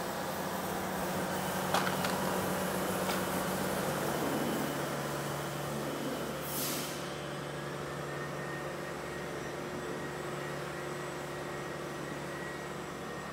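Steady mechanical hum whose low tone drops slightly in pitch about four seconds in. Two light clicks come early, and a short hiss of air comes about six and a half seconds in.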